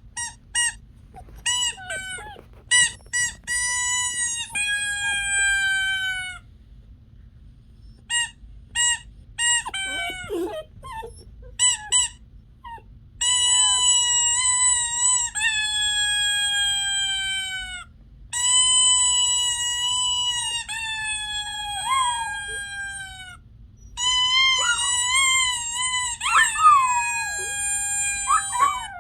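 Miniature dachshund howling: a run of short high yips gives way to long drawn-out howls of two to three seconds each, each sagging slightly in pitch, over a faint steady low hum.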